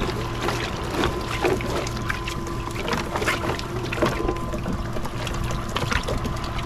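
Live pilchards being shaken out of a wet cast net into a boat's live well: many quick irregular slaps and splashes of flapping baitfish and dripping water, over a steady hum.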